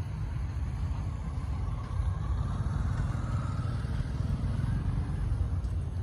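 Steady low rumble of road traffic, swelling slightly as a vehicle passes about two to five seconds in.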